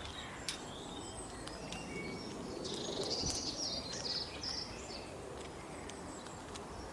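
Faint outdoor ambience with a quick run of short, high chirps about three to four and a half seconds in, and a faint click about half a second in.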